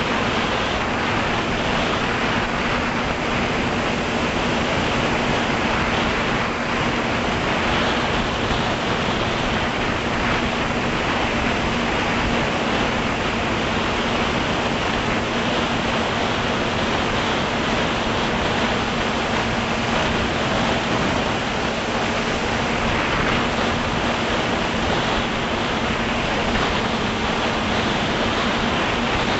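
Steady rush of propeller wash and wind on an FPV drone's onboard camera microphone, with the motors' steady hum underneath.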